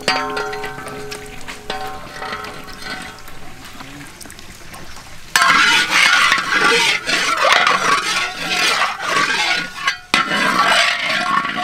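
Hot oil sizzling and crackling in a large iron wok, with a metal spatula scraping through it. The sizzle starts suddenly about five seconds in, after a quieter stretch of fading metallic ringing.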